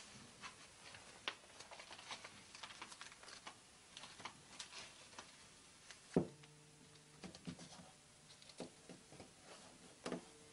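Scattered light taps, clicks and rustling, with one sharper knock about six seconds in followed by about a second of low steady hum.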